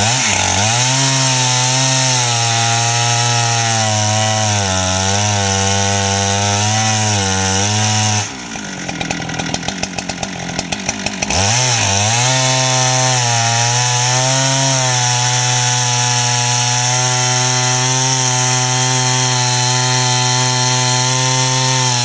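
Husqvarna 395XP two-stroke chainsaw on an Alaskan mill with a 4-foot bar, running at full throttle as it rips a slab lengthwise through a log, its pitch wavering slightly under load. About eight seconds in the throttle drops to idle for roughly three seconds, then the saw revs back up and cuts on steadily.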